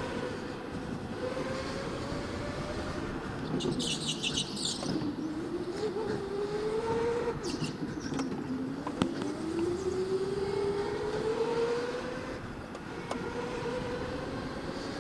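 Electric go-kart motor whining under a rumble of track noise, its pitch climbing as the kart speeds up and dropping back as it slows for corners, several times over. A short high squeal about four seconds in and a sharp click about nine seconds in.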